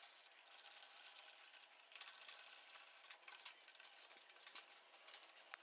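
Faint, quick clicking of a hand socket ratchet in short runs of strokes, tightening the cylinder-head stud nuts of a 100cc motorcycle engine during reassembly.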